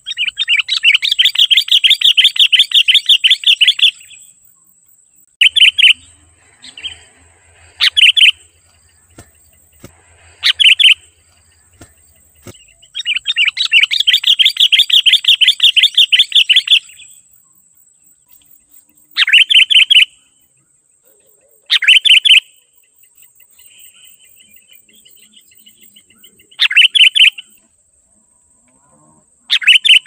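Sooty-headed bulbul calling: two long runs of rapid chattering notes, each about four seconds, one at the start and one about 13 seconds in, with short sharp chirps of about half a second every few seconds between and after them.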